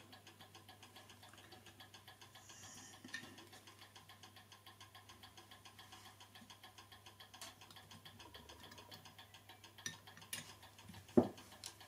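A clock ticking faintly and steadily, about four ticks a second, with a few light clicks of small metal parts being handled and one sharper knock near the end.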